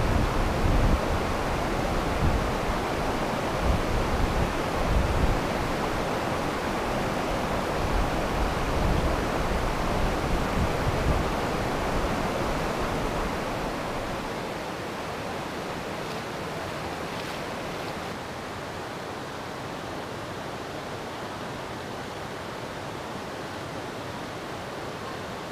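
Steady rush of creek water running over rock rapids, with low gusts of wind buffeting the microphone through the first half; the rush settles a little quieter and steadier about halfway through.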